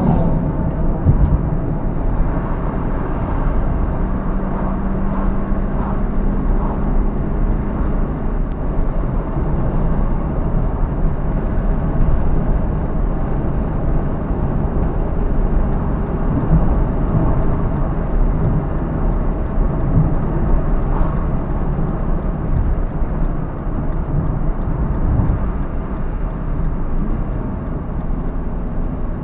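A car being driven: steady engine and road noise, with a steady hum in the first several seconds.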